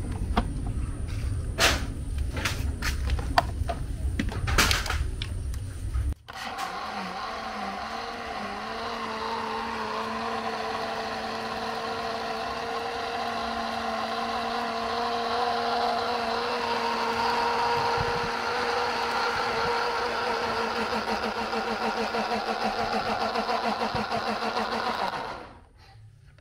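Low rumble with several sharp knocks for about six seconds. After a sudden break, an electric grinder motor runs steadily at one pitch for about nineteen seconds, grinding the soaked rice into meal, then stops shortly before the end.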